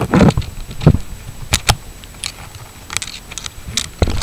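Handling noise from a salvaged camera optics unit held and moved against a camera lens, close to the microphone: irregular sharp clicks and taps, about eight of them, with some rubbing in between.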